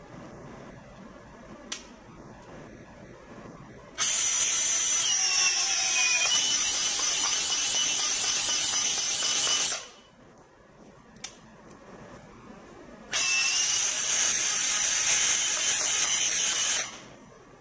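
REX RF20S cordless flaring tool spinning its eccentric cone into the end of a copper pipe, with the rattling 'gacha-gacha' of its clutch slipping as the 45° flare is finished. After a click of the direction switch, the motor runs a second time in reverse to back the cone out.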